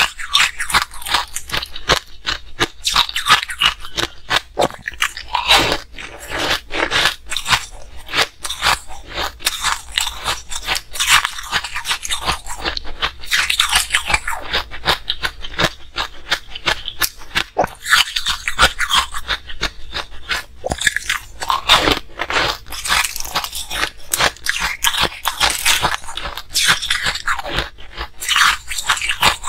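Frozen ice balls being bitten and chewed, close-miked: dense, irregular crunching of ice between the teeth.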